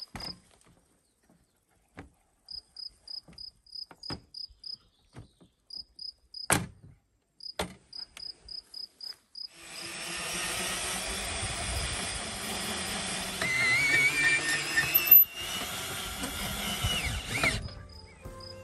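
Crickets chirping in runs of short high chirps, about three a second, with a few sharp clicks. About nine seconds in, a loud rushing noise with rising whistling tones takes over for about eight seconds, then cuts off.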